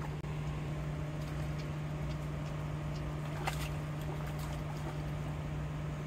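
A steady low hum, like a motor running. About three and a half seconds in comes a short splash as a hooked tilapia is jerked up out of the pond on a fishing line.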